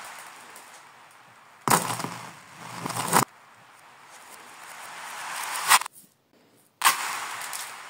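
Handfuls of small plastic beads clattering and scattering across a laminate floor, three times. Some clatters swell and then cut off abruptly, as reversed audio does.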